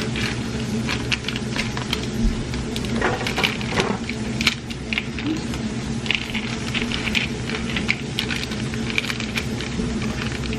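Food packaging handled over plastic mixing bowls: paper and plastic rustling and crinkling in quick, irregular light clicks as a packet's contents are poured into a bowl. A steady low hum runs underneath.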